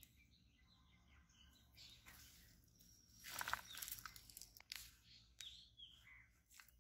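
Quiet outdoor ambience with a few short bird chirps and brief scuffing noises, loudest about halfway through.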